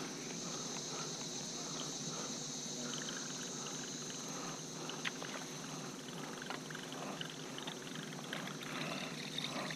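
Steady high-pitched drone of insects, with faint scattered clicks and soft rustles from a baitcasting rod and reel being cranked.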